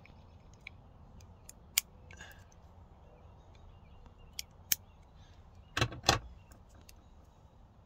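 Flat screwdriver prying the plastic retaining clip off a Toyota Tundra parking-assist sensor: scattered small plastic clicks, then a louder pair of snaps about six seconds in as the clip gives.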